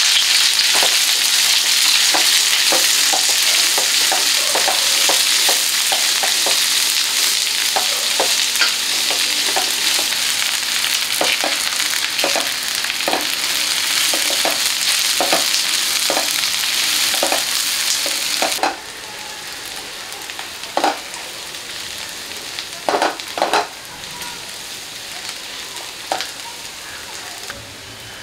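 Sliced onions frying in hot oil in a nonstick pan: a loud, steady sizzle with a spatula repeatedly scraping and stirring against the pan. About two-thirds of the way through, the sizzle drops suddenly to a quieter fry with only occasional scrapes as the onions brown.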